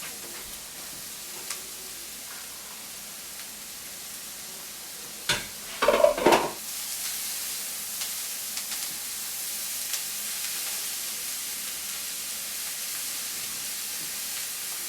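Cauliflower rice and vegetables sizzling in a wok with sesame oil. About five seconds in, a spatula scrapes and clatters against the wok in a short run of loud strokes, and the sizzle is louder after it.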